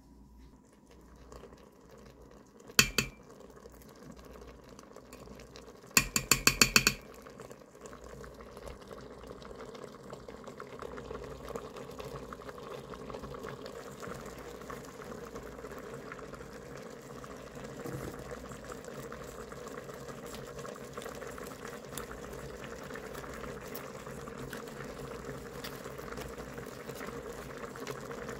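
A utensil taps rapidly, about ten times, against the rim of the stainless Instant Pot inner pot, knocking off a spoonful of crème fraîche. After that comes a steady bubbling hiss of liquid heating in the pot, slowly growing louder.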